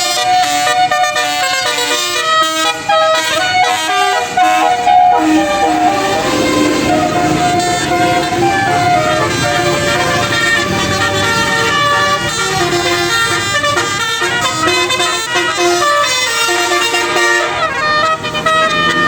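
Basuri-type telolet bus horns playing rapid melodic tunes, the pitched notes changing several times a second, over a low engine rumble.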